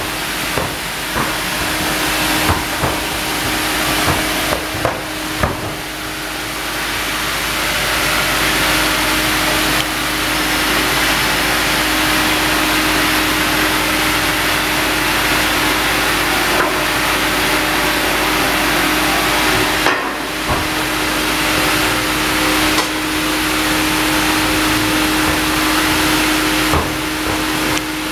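Sawmill log band saw running with a steady hum while it saws a cinnamon (nikkei) log on the carriage. A hissing cutting noise builds about eight seconds in, breaks off briefly around twenty seconds, and resumes. A few clicks and knocks come from the machinery in the first seconds.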